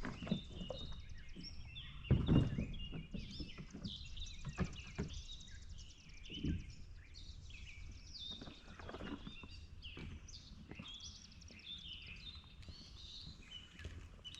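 Many birds chirping and calling together, with a few dull thumps, the loudest about two seconds in.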